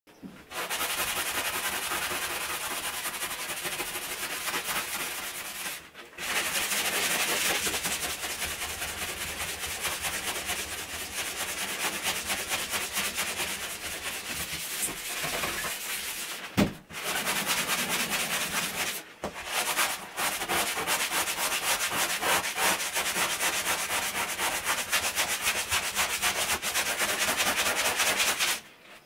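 Sponge scrubbing a wet bathtub surface: a steady, rough rubbing that stops briefly a few times. There is one sharp knock a little past the middle.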